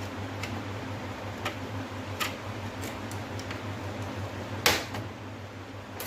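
Scattered light clicks of plastic parts and tools being handled while an LED TV is taken apart, with one louder knock about three-quarters through, over a steady low hum.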